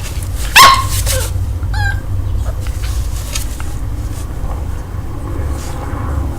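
A puppy gives one short, high yelping bark about half a second in, with a falling pitch, and then a brief wavering squeak. A steady low rumble runs underneath.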